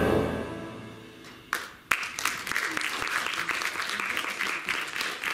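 Final chord on a Yamaha PSR-S950 arranger keyboard dying away, then two sharp knocks about a second and a half in, followed by an audience applauding.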